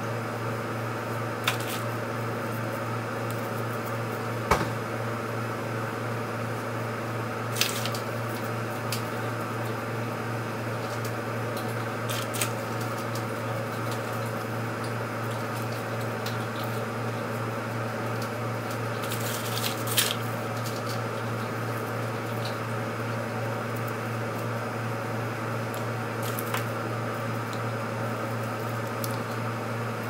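A steady low electrical hum runs throughout. A few brief rustles and clicks cut across it as hair is wound onto Velcro rollers, one longer scratchy rustle about two-thirds of the way in.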